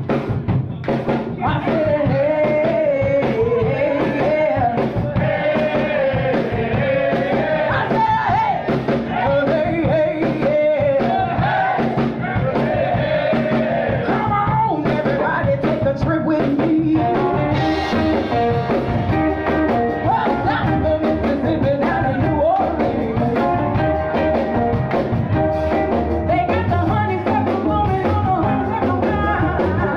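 Background music: an upbeat rock-and-roll song with singing and a steady drum beat.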